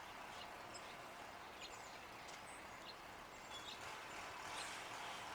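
Faint outdoor ambience: brief, high bird chirps here and there over a steady low background noise.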